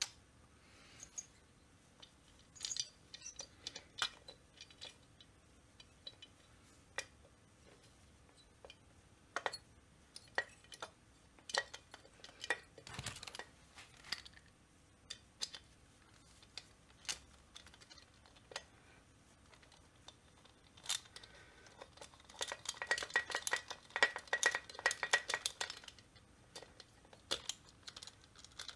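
Small metal chainsaw engine parts and hand tools clicking, tapping and clinking during bench assembly. Scattered single knocks, then a run of rapid clicking about three-quarters of the way through.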